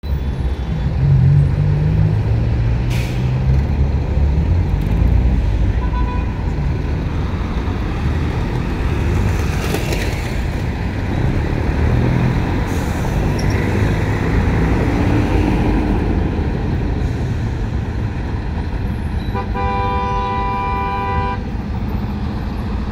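City buses and other traffic running with a steady low engine rumble, and a vehicle horn sounding one held honk of about two seconds near the end.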